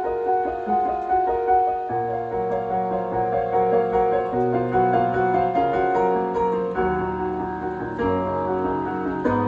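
Piano music, slow, with held chords over low bass notes that change every couple of seconds.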